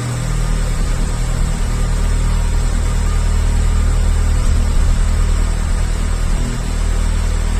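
Seat León Copa race car's engine idling on its stock exhaust just after a cold start, a steady low drone.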